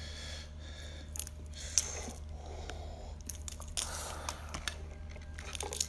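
A person biting into and chewing a soft-shell crab: irregular crunches and clicks of shell and meat.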